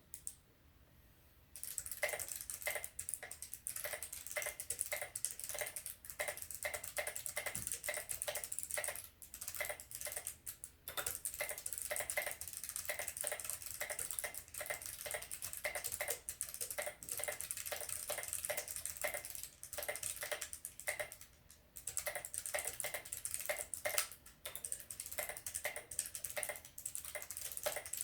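Fast typing on a KBD75 mechanical keyboard with clicky Kailh BOX Pale Blue switches and no keycaps fitted. It is a rapid, uneven stream of sharp clicks that starts about a second and a half in, with a few brief pauses.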